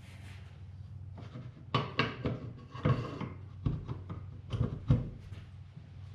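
Metal parts of a John Deere 7000 planter's row-marker latch clicking and knocking against each other and the wooden workbench as they are fitted together by hand. The knocks are sharp and scattered, several within a few seconds, over a steady low hum.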